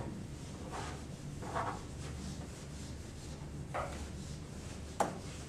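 Whiteboard eraser rubbing across a whiteboard in repeated wiping strokes, with a single sharp knock about five seconds in.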